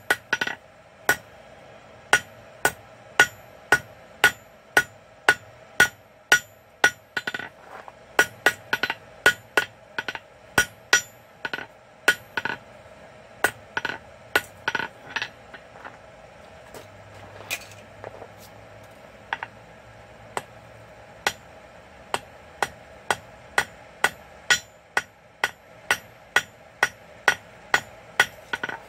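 Blacksmith's hammer striking hot quarter-inch steel bar on an anvil, about two blows a second, each with a brief ring, drawing out a long square taper. Around the middle the blows thin out to a few scattered strikes before steady hammering resumes, with a steady hum underneath throughout.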